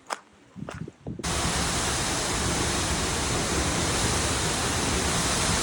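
Waterfall's steady rush of falling water, starting suddenly about a second in after a brief quiet moment.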